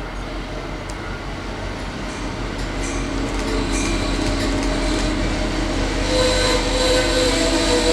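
Hartford Line passenger train pulling out of the station, its locomotive and wheels getting steadily louder as it accelerates past, with steady tones rising out of the noise near the end.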